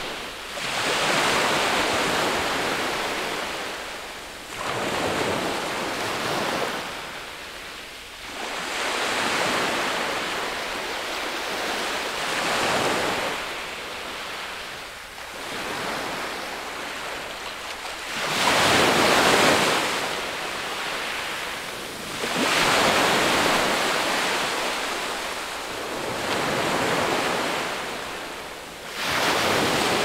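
Ocean surf: waves washing in as a rushing noise that swells and fades about every four seconds.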